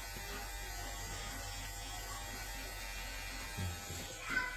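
GLAKER electric hair clipper running with a steady buzz.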